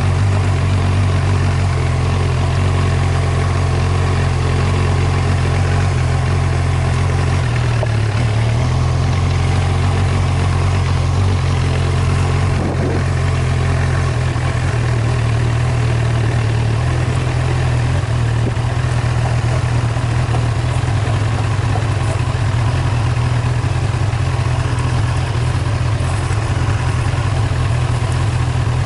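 Vehicle engine running steadily while driving along a dirt track, a loud low drone that shifts slightly in pitch about seven seconds in.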